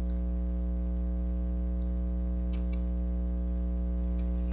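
Steady electrical mains hum, a buzzy drone with many overtones, with a few faint clicks over it.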